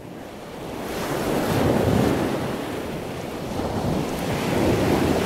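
Ocean waves surging, fading in at the start and swelling twice, about two seconds in and again near the end.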